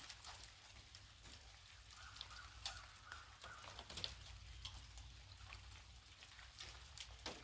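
Melting ice dropping from tree branches: faint, scattered ticks and patters as the bits of ice hit the ground at irregular intervals.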